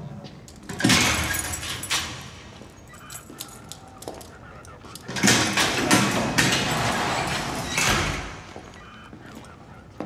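Metal security gates of a prison sliding and clanging: a sudden clank about a second in, then a longer rolling slide from about five seconds that ends in a heavy thud near eight seconds.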